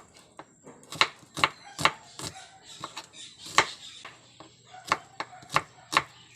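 Knife chopping food on a cutting board: sharp separate strokes at an uneven pace of about two a second, with a short pause near the middle.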